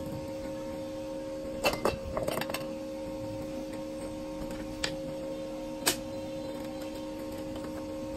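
A steady electrical hum with a few sharp clicks and clinks of small tools being handled on a workbench: a quick cluster about two seconds in, then two single clicks a few seconds later.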